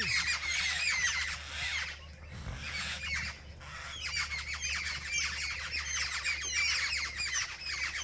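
Many birds chirping and calling over one another in a continuous chatter of short, high notes. The chatter thins out about two seconds in and picks up again after about four seconds.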